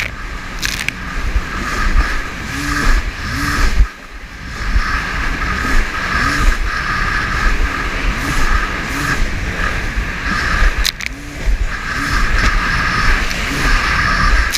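Small watercraft engine running hard in rough water, its pitch rising and falling over and over as the craft rides the swells, with wind rumble on the microphone. Its loudness drops briefly about four seconds in, and there is a single sharp click near the eleventh second.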